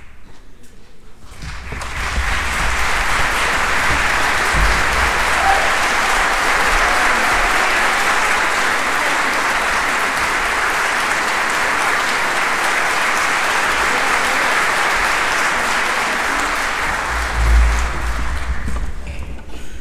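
Concert hall audience applauding: clapping swells in about a second and a half in, holds steady and dense, then dies away near the end.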